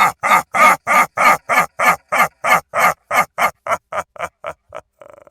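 Evil scarecrow laugh sound effect: a deep, rhythmic 'ha-ha-ha' at about three and a half pulses a second. The pulses grow shorter and fainter and die away near the end, trailing off into a faint flutter.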